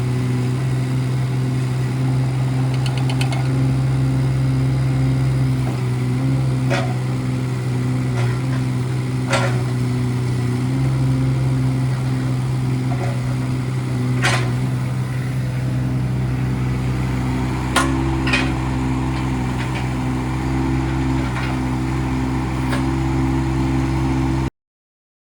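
Kubota K008-3 micro excavator's three-cylinder Kubota diesel running at a steady speed, with a few sharp metallic knocks from the machine, the loudest a little past halfway. The sound cuts off suddenly just before the end.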